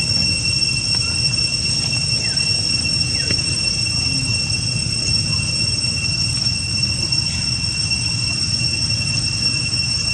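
A steady high-pitched whine, two pure tones held without change, over a low rumble, with two faint short chirps about two and three seconds in.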